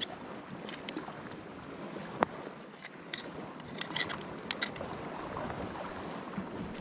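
Knife clicking and scraping against scallop shells as they are shucked: a scattering of short, sharp clicks over a steady background hiss.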